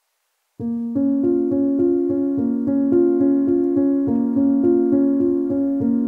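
Background music begins about half a second in: a keyboard or piano plays an even, repeating pattern of notes at a steady level.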